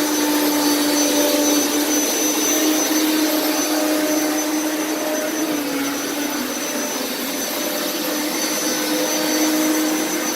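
Hoover Power Scrub Elite Pet carpet cleaner running over carpet, its motor giving a steady hum with a high whine. The hum dips slightly in pitch about halfway through and comes back up as the machine is worked back and forth.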